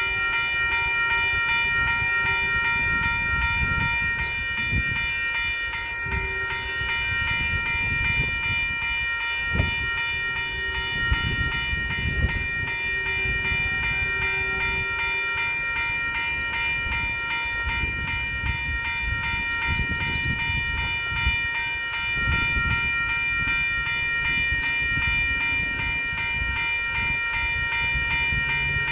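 A train rolling past with a continuous low rumble and a few sharp clanks, over a steady high-pitched ringing of several tones that runs without a break.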